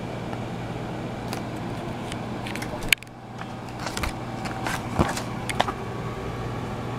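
Yearbook pages being handled and turned: scattered sharp clicks and paper rustles, the loudest a sharp click about three seconds in, over a steady low hum.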